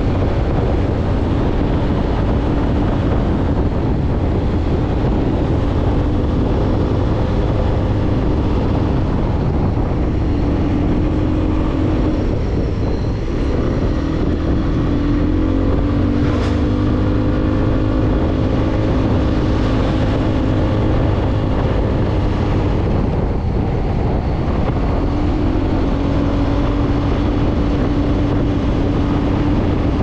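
Motorcycle engine running at road speed with wind rushing over the microphone, the engine note rising and falling with the throttle. An oncoming truck rushes past about halfway through.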